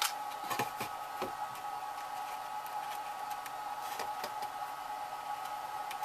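A few light clicks and taps from a metal canopy rail and clear plastic canopy being handled, several in the first second and a couple around four seconds in, over a steady background hum.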